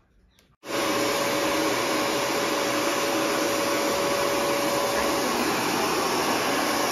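An upholstery extractor machine's suction motor switches on abruptly within the first second and runs steadily with an even rush of air and a thin steady whine.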